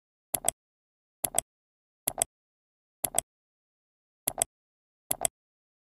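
A camera shutter sound effect, six quick double clicks about a second apart, with dead silence between them.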